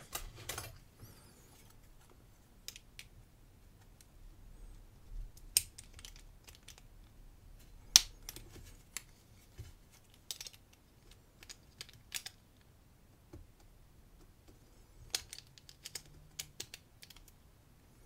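Scattered small metallic clicks and taps from a brass Sargent XC lock cylinder, its key and loose parts being handled, with a sharper click about eight seconds in and a quick run of clicks near the end.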